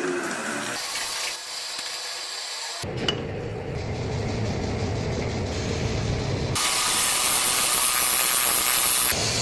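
Metal lathe machining noise in several abruptly edited segments: a steady hiss, with a low hum in the middle part. A sharp click comes about three seconds in.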